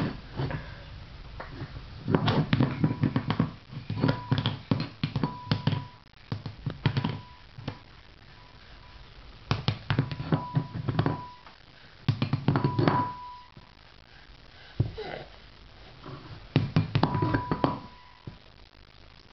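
A ceramic dog bowl spun by hand on a tile floor, wobbling and clattering as it settles. There are about six bursts of rapid rattling taps, several with a clear ringing tone from the bowl.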